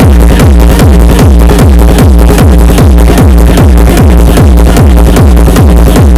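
Electronic dance music with a deep kick drum about twice a second, each kick a falling bass thud, played very loud through a JBL Tornado 5600 speaker.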